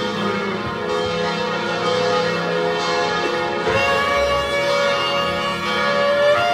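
Church bells of the basilica ringing, many bell tones sounding together and ringing on, with a fresh set of strokes coming in a little past halfway.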